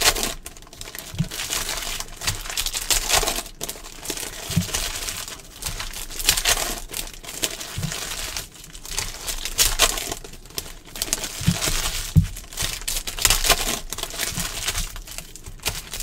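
Trading-card pack wrappers being torn open and crinkled by hand, an irregular crackling that comes and goes.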